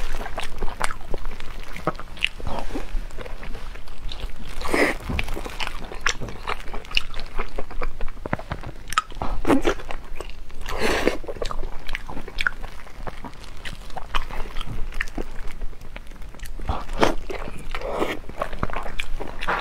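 Close-miked eating: a soft glazed stuffed bun torn apart by hand and bitten into, with steady chewing and wet mouth sounds. There are many small clicks and several louder bites.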